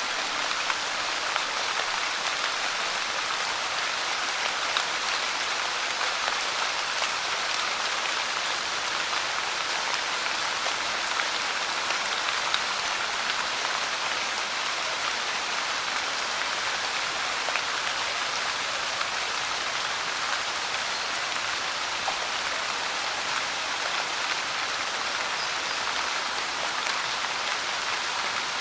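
Light rain falling steadily, a constant patter of drops on a surface.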